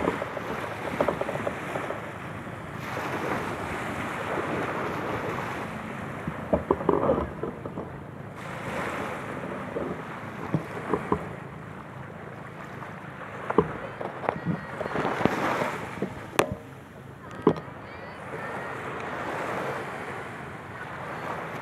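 Small waves breaking and washing up the beach, swelling and fading every few seconds, with wind on the microphone and a few sharp knocks.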